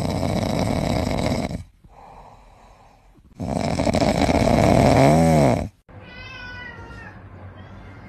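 Cat sounds in short clips cut together: loud rough noise close to the microphone, broken off twice. A low call rises and falls about five seconds in, and a cat meows about six seconds in.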